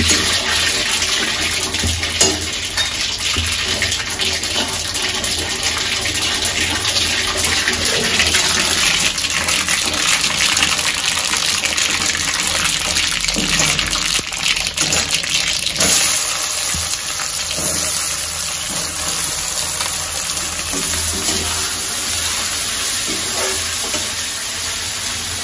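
Hot oil and ghee sizzling steadily in a steel kadai as mustard seeds and urad dal fry for a tempering, with a metal ladle stirring and scraping the pan. The sizzle changes about two-thirds of the way through, when chopped onions go into the oil.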